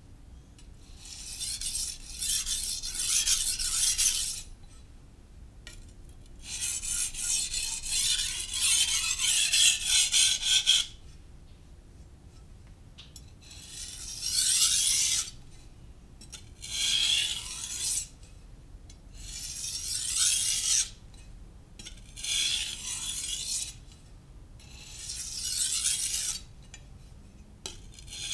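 Knife blade being sharpened on a Naniwa Professional 600-grit whetstone: strokes of steel on stone in bouts of one to four seconds, with short pauses between. Another bout starts right at the end.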